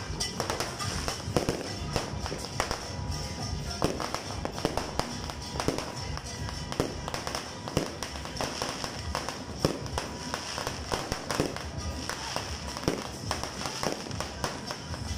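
Fireworks going off: a steady run of irregular bangs and pops, several a second at times, with music playing underneath.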